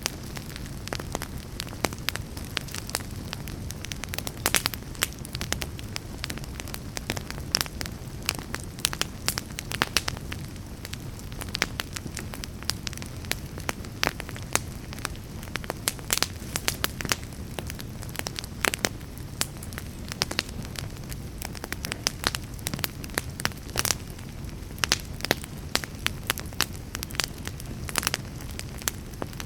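Wood fire burning in a fireplace: a steady low roar of flames with frequent, irregular sharp crackles and pops from the burning logs.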